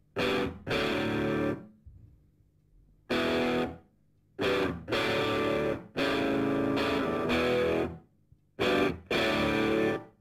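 Background music: distorted electric guitar chords played in stop-start bursts, each up to about a second long, with short silences between them.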